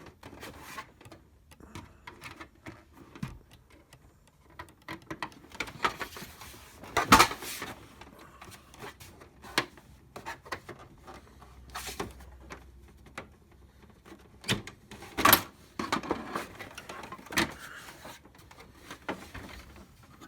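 Irregular clicks and knocks of a printer's plastic housing and parts being handled, with two louder knocks about seven and fifteen seconds in.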